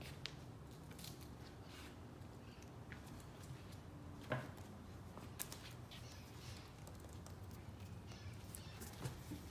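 A Parson Russell Terrier puppy playing with a knotted rope toy on a hardwood floor and towel: faint, scattered light clicks and taps of claws and toy, with one sharper knock about four seconds in.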